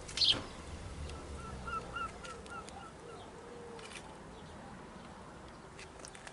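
A sharp burst of sound just after the start, then a run of short bird calls repeated about four times a second for a couple of seconds, with a few faint clicks afterwards.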